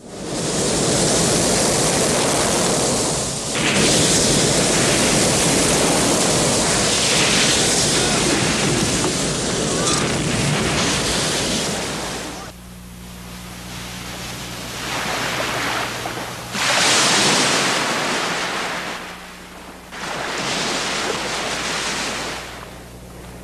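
Ocean surf breaking and washing up a sandy beach: a long, loud wash through the first dozen seconds, then separate swells of surf rising and falling.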